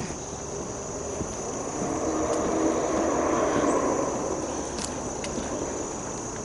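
A distant engine passing by, swelling over a couple of seconds and then fading, over a steady high insect trill.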